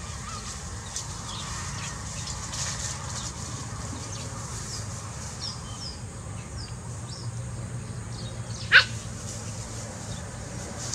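A single sharp dog yelp about nine seconds in, one short cry falling in pitch, with a few faint high squeaks before it.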